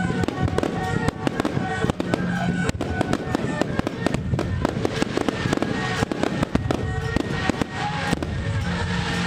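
Fireworks going off in a dense, continuous run of sharp cracks and bangs, with music of long held notes playing underneath.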